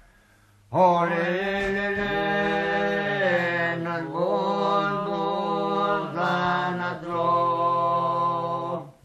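Resian folk song from the Val Resia: voices singing long, drawn-out notes in chant-like phrases over a steady low held tone. The singing starts after a short pause of under a second and runs in three or four phrases of a few seconds each.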